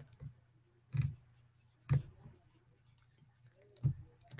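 Stylus on a pen tablet: three sharp taps, about a second in, about two seconds in and near the end, with faint scratching and ticking between.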